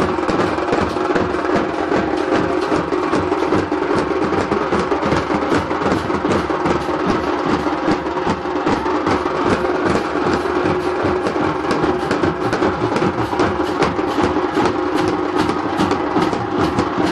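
Loud, fast drumming with rapid, even strokes, over a steady held tone.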